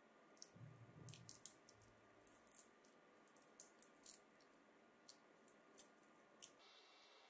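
Faint crinkling and ticking of a coaxial cable's aluminium foil shield and braid being peeled back by fingers: a dozen or so small sharp clicks at uneven intervals, with a soft rustle in the first two seconds.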